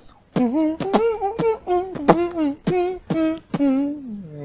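A man's voice singing a wordless tune in a quick series of short syllables, each note starting with a sharp consonant.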